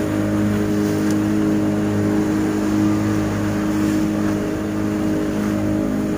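Glass-bottom tour boat's engine running steadily at constant speed: an even drone with an unchanging pitch, over the wash of the water.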